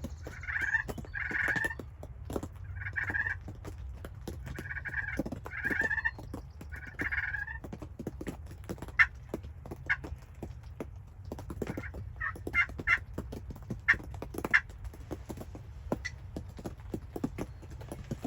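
Wild turkey gobbler gobbling, about six rattling gobbles in the first half. These are followed by a run of short, sharp higher notes. A steady crackle of small clicks and a low rumble lie underneath.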